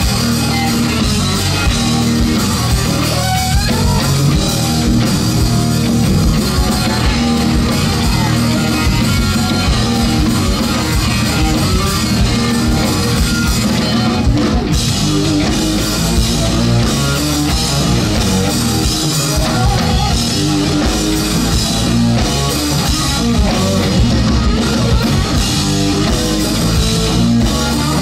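Live rock band playing an instrumental passage at full volume: electric guitar over bass guitar and drum kit, without a break.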